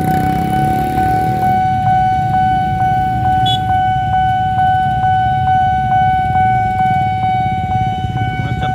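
Railway level-crossing warning alarm sounding a steady high electronic tone, pulsing about three times a second: the signal that a train is approaching the crossing. Underneath runs the low rumble of many idling motorcycle engines.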